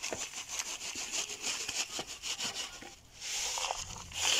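Dry potting soil being scooped and scraped with a foam cup: a gritty scratching and rustling made of many short scrapes, dipping briefly about three seconds in and then coming back louder in two rushes near the end.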